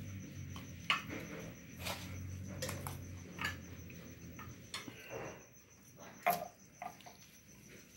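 Sounds of eating at the table: a metal spoon clinking and scraping on a glass plate, with chewing, making a few sharp clicks, the loudest about six seconds in.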